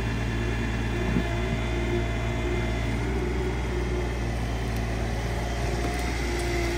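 Mini excavator's diesel engine running steadily as the bucket digs out soil and tree roots, with held hydraulic tones that shift a little in pitch as the arm works.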